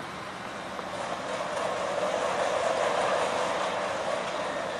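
Fairground ride running with a rolling, rushing noise that swells about a second in and fades near the end.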